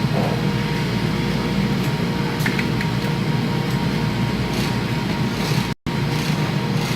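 Steady low hum of factory machinery in a garment workroom, broken by a split-second dropout about six seconds in.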